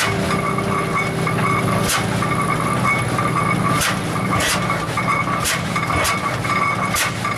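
1908 Hart-Parr 30-60's two-cylinder engine running slowly, with sharp firing beats at uneven gaps of roughly a second over a steady low rumble.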